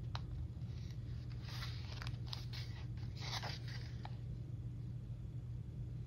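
Paper pages of a booklet being turned and handled, a few quick rustling swishes and light crinkles over the first four seconds, then only a low steady hum.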